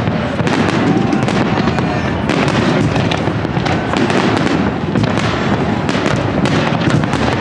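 Big aerial fireworks display going off in rapid, continuous succession: dense crackling with overlapping bangs and a steady low rumble beneath.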